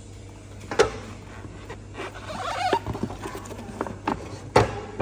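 Plastic sealing film on a food tray crinkling and tapping as a gloved hand handles it, with two sharp knocks, one about a second in and one near the end. A steady low hum runs underneath.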